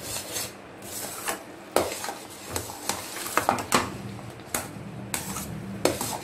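A metal spoon stirring thick rava kesari in a steel pan, scraping and clinking against the pan about half a dozen times.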